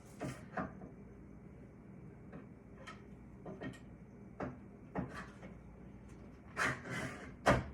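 Table saw push stick being fitted into its holder on the saw: scattered light clicks and knocks, with the loudest knocks near the end.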